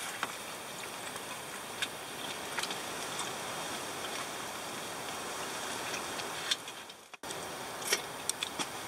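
Steady rushing of strong wind against the tent, with a few light clicks of chopsticks and metal plates. The sound cuts out briefly about seven seconds in, then a metal kettle clinks as it is handled on the charcoal grill.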